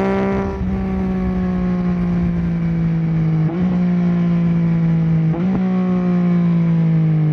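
Yamaha Tracer 9 GT's 890 cc three-cylinder engine, loud through an unbaffled Akrapovic full exhaust, held at high revs that sink slowly as it slows. Twice, about three and a half and five and a half seconds in, a quick downshift steps the pitch back up.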